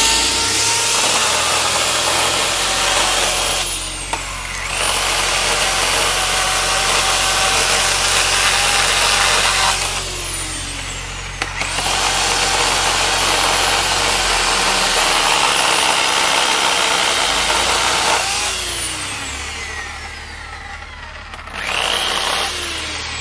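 Bosch electric chainsaw cutting through dead branches. Its motor runs in four bursts, three long and one short near the end, and each winds down with a falling pitch as the trigger is let go.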